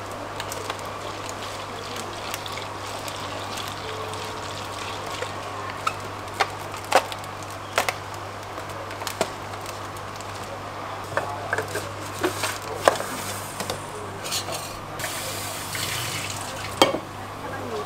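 Liquid being poured and a plastic bag of iced drink handled and rustled on a steel counter, with a dozen or so sharp knocks of containers set down. A steady low hum runs underneath.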